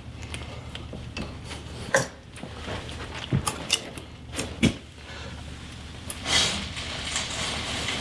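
Sharp metallic clinks and knocks of a socket wrench and bar being worked on a seized front hub nut, with a short rush of noise about six seconds in. The nut does not break loose: the effort only turns the opposite wheel.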